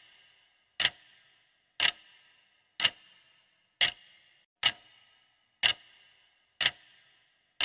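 Clock-tick sound effect counting down a quiz timer: sharp, evenly spaced ticks about once a second, each with a short ringing tail.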